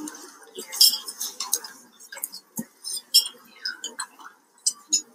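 Clinking and clattering of mugs, dishes and cutlery in a crowded dining hall, with irregular sharp clinks several times a second.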